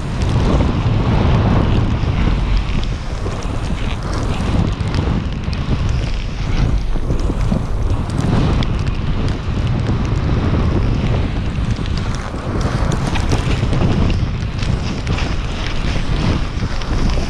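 Wind buffeting a pole-mounted action camera's microphone as the rider moves at speed, a steady low rumble, with the hiss of a Moss Snowstick snowboard running through deep powder snow.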